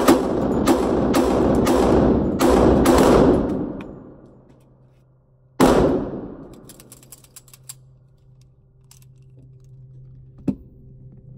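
A Ruger SR1911 pistol firing six rounds of .45 ACP in rapid succession, about three seconds from first to last shot, echoing in an indoor range. A single further loud bang comes about five and a half seconds in, over a steady low hum.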